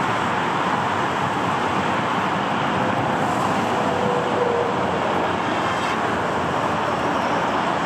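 Twin CFM56-5B turbofan engines of an Airbus A320-216 at taxi idle: a steady rushing noise with a faint whine.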